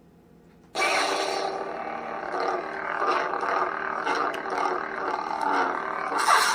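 Saberforge Venomous Fury lightsaber's sound board, set to its crimson sound font, igniting through its built-in speaker about a second in and then holding a steady, rough hum. A brief brighter surge comes near the end.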